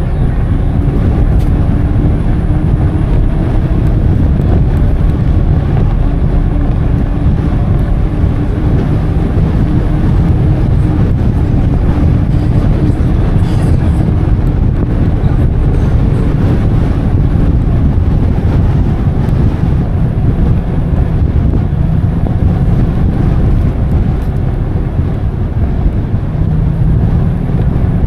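Wind buffeting the microphone on a moving e-bike: a loud, steady low rumble, with a faint steady hum that fades out about two-thirds of the way through.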